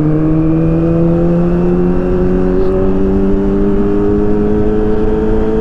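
Kawasaki ZX-25R's 250 cc inline-four engine, freshly serviced and tuned up, running under steady load as the bike is ridden, its pitch climbing slowly as it gains speed, with wind rumble on the microphone.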